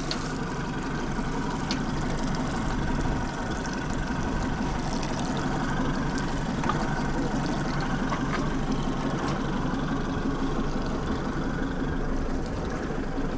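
Outboard motor running steadily, with water washing along the boat's hull.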